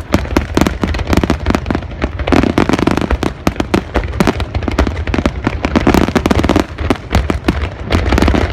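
Fireworks display: a dense barrage of shells bursting, many bangs per second overlapping one another with crackling between them, over a steady deep rumble.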